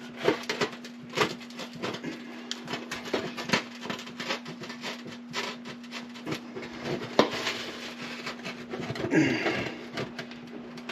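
Scattered clicks and knocks of hands working a spade connector off the broken oven heating element's terminal, metal parts tapping and rattling, over a steady low hum.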